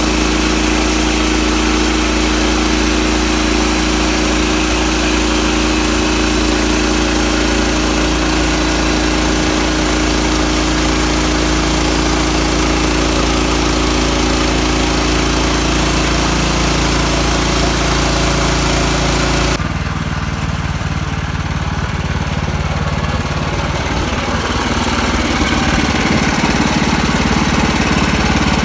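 Sawmill's gas engine running steadily. Well past halfway through, the sound changes abruptly: the higher-pitched part drops away and a lower, rougher engine rumble continues.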